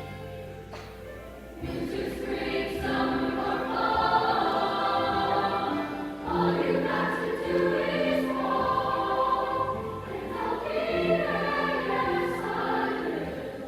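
Junior high choir singing held notes, swelling louder about two seconds in.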